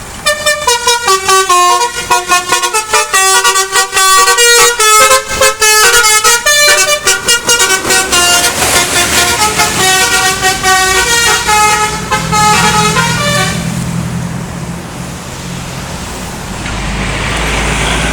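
A bus's Basuri telolet horn, a multi-tone musical horn, plays a quick melody of many short notes for about thirteen seconds. A low engine sound then takes over and grows louder near the end.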